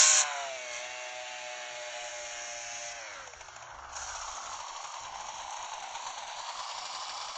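A 100cc two-stroke chainsaw engine comes off a brief burst of throttle and runs steadily at a lower speed. About three seconds in, its pitch sinks and the engine note dies away, leaving a steady hiss.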